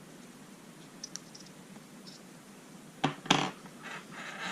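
Small metal clicks and scraping from a padlock being gutted: a drill bit is pushed through the lock body as a makeshift follower to slide the core out. Two sharp clicks come about three seconds in, followed by brief scraping.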